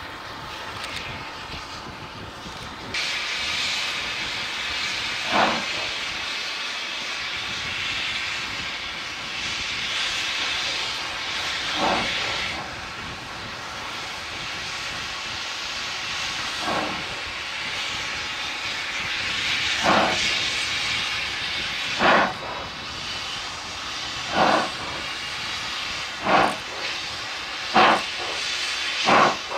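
Steam locomotive hissing steam, which grows suddenly louder about three seconds in, with exhaust chuffs that start far apart and come steadily faster, as the engine gets under way.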